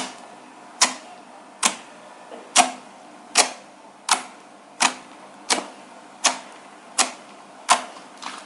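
Fingers pressing and poking into a thick slime, each push popping trapped air with a sharp click. About a dozen evenly spaced pops, a little more than one a second.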